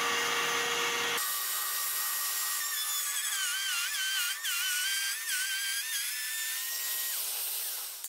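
Small high-speed router in a Proxxon MP 400 micro router table running and cutting a groove in plywood. Its whine steps lower about a second in and wavers in pitch as the wood is fed across the table, then cuts off abruptly at the end.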